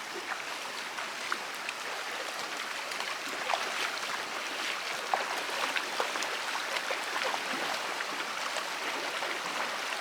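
Mountain river flowing over rocks: a steady rushing with many small quick splashes.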